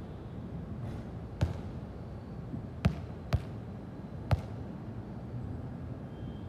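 Four sharp thumps over a steady low background rumble: one about a second and a half in, two about half a second apart near the three-second mark, and one more a second later.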